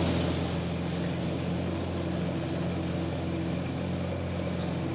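Tractor engine running steadily, driving a Ford 907 flail mower through the PTO. The mower spins with no rattle, its rotor bearing freshly replaced.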